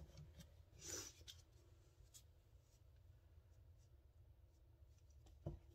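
Near silence: low room hum, with a faint soft rustle about a second in and a small click near the end.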